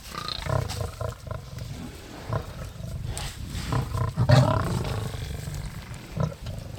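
Lions growling and snarling in repeated short, rough calls, loudest about four seconds in.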